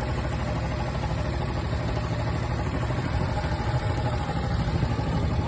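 Longtail boat engine running steadily, a continuous low rumble.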